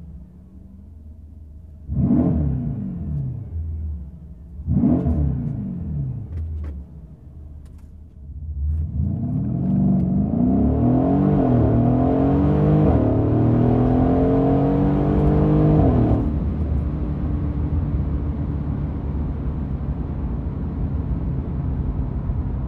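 Mercedes-Benz E63 AMG's 5.5-litre twin-turbo V8 through an Alpha Series performance exhaust: two quick throttle blips about two and five seconds in that fall back to idle. From about eight seconds it pulls hard, the pitch climbing and dropping through several upshifts, then lifts off about sixteen seconds in and settles into a steady lower drone.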